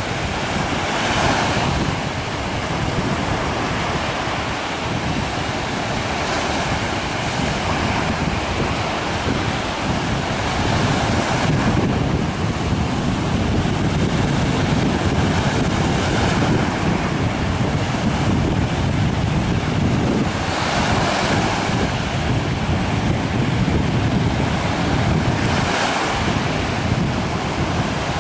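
Small sea waves breaking on the shore, a hiss of surf washing up every few seconds, with wind rumbling on the microphone.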